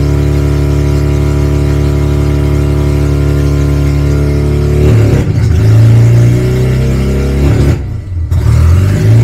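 Mazda RX-7's Wankel rotary engine running steadily, then from about five seconds in its speed wavers and surges unevenly, dipping sharply about eight seconds in before picking back up.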